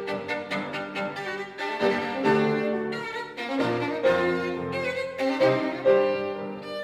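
Violin and piano playing a classical sonata together, the violin holding long melodic notes over the piano accompaniment.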